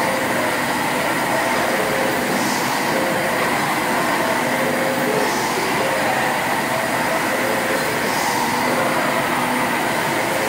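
Stationary steam engines running in an engine hall: a steady mechanical clatter and hum, with a short hiss repeating about every three seconds.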